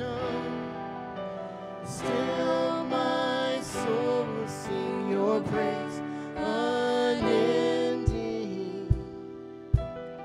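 Slow worship song music from a church band, with held notes, and a few low drum thumps near the end.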